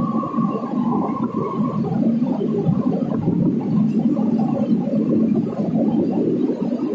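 Passenger train running through a tunnel, heard from an open coach doorway: a loud, steady rumble of wheels on rails and rushing air echoing off the tunnel walls. A faint high whine runs over the first two seconds.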